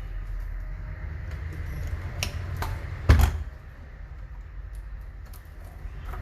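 Clicks and knocks of a ventilator's parts being handled as it is taken apart, with one louder knock about three seconds in, over a low steady rumble.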